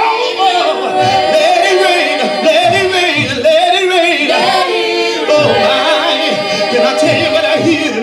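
Gospel praise team of men and women singing together in harmony into microphones, holding long notes.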